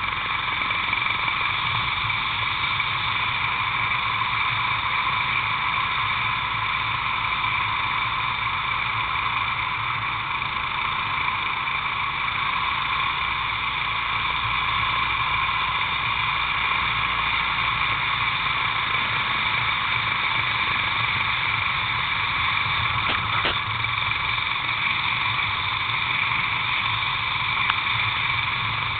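Racing kart at speed heard from a camera mounted on the kart: a steady rush of wind noise with the kart's engine underneath, unchanging in pitch.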